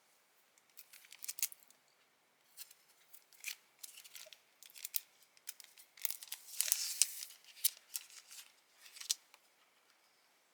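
Small scissors snipping paper for diary decorating: runs of quick, crisp cuts in several bursts with short pauses between them.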